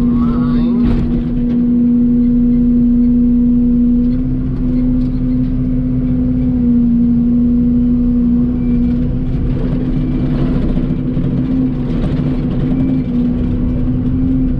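Excavator's diesel engine running steadily under work, its pitch dipping slightly and then rising a little toward the end.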